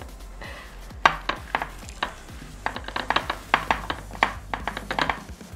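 Hands tossing oiled, seasoned chunks of potato, carrot, bell pepper and onion in a glass baking dish: irregular clacks and taps of the vegetable pieces against the glass and each other.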